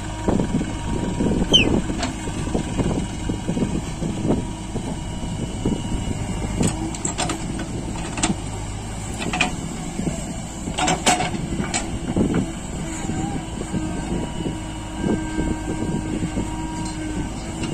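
Tractor's diesel engine running steadily under load while pulling a loaded trolley, with a few sharp knocks and rattles, a cluster of them about two-thirds of the way through.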